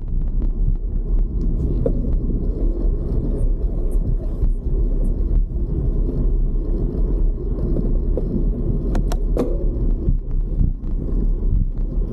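Wind rumbling on the built-in microphone of an Insta360 X3 action camera carried on a moving bicycle: a loud, steady low rumble, with a couple of sharp clicks about nine seconds in.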